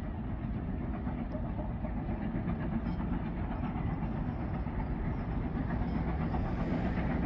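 Great Western steam train hauling a rake of carriages, a steady rumble of the train on the rails that grows gradually louder.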